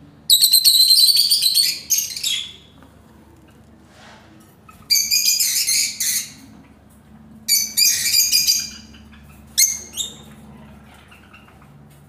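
Rosy-faced (peach-faced) lovebirds giving loud, shrill, rapid chattering calls in four bouts, the first and longest lasting about two seconds and the last one brief.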